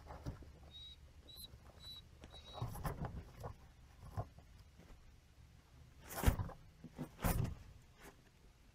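Guinea pigs scurrying through wood-shaving bedding, a scattered rustling, with four short faint high squeaks in the first couple of seconds and two louder rustling thumps about six and seven seconds in. A low steady hum runs underneath.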